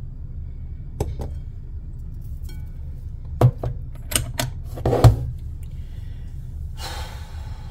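Several sharp clicks and knocks over a steady low hum. The loudest knocks come about three and a half and five seconds in, and a short rush of noise follows near the end.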